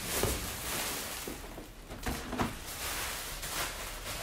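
Thin plastic mailing bag crinkling and rustling as a cardboard box is pulled out of it, with a few dull knocks of the box against a wooden tabletop.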